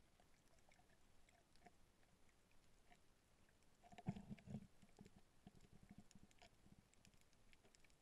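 Near silence of underwater ambience heard through a camera housing: faint scattered clicks, with a short cluster of muffled low knocks about four seconds in.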